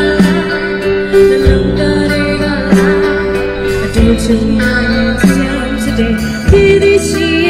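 Live band music: a woman singing with vibrato over electric guitar and a drum kit's steady beat, through a stage PA.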